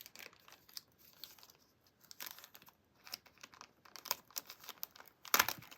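Packaging crinkling and rustling in irregular crackles as it is opened, with a louder burst near the end.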